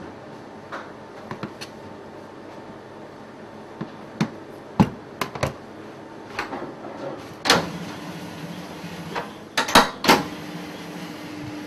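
Knife and pastry dough knocking and clicking on a stainless steel work table, a scatter of sharp taps and thuds. About seven and a half seconds in, a dough sheeter's electric motor starts with a steady low hum, and two or three loud clunks from the machine's lever follow near the end.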